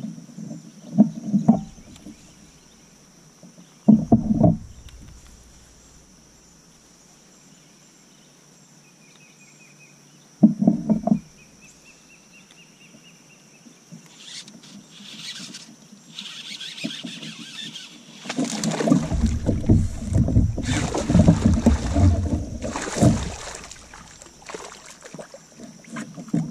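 Noises of a fishing kayak on the water: a few sharp knocks against the hull, then a long stretch of water sloshing and splashing around the boat, loudest in the second half.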